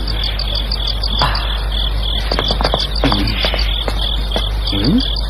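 Crickets chirping steadily, about four chirps a second, over a low steady hum.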